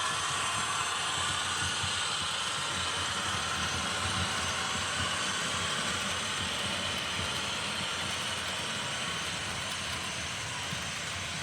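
Diesel locomotive running steadily, a low rumble under an even hiss, easing off slightly toward the end.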